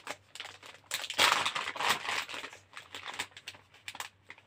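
Crinkling and rustling of a cross-stitch kit's packaging as it is handled and opened, in irregular crackly bursts that are loudest from about one to two seconds in.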